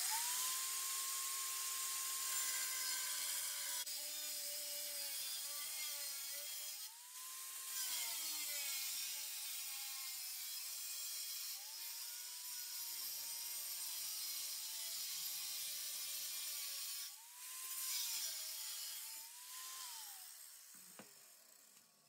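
A high-speed power cutting tool cutting sheet steel for a patch panel. It starts suddenly, and its whine sags each time it bites into the metal, then recovers. Near the end it is switched off and spins down.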